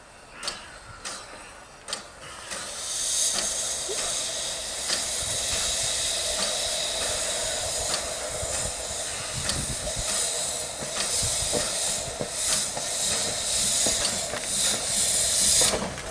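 Narrow-gauge steam locomotive moving off with its cylinder drain cocks open. After a few separate exhaust chuffs, a loud steady hiss of steam starts about two and a half seconds in, with regular chuffs running through it.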